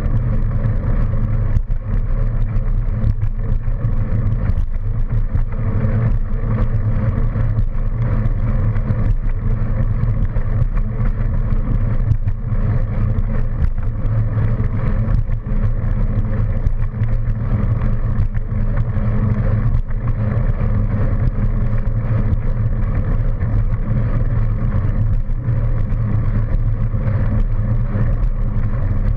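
Steady loud low rumble of wind and ride vibration on a camera mounted on a bicycle rolling along a paved path, with scattered small knocks from bumps in the surface.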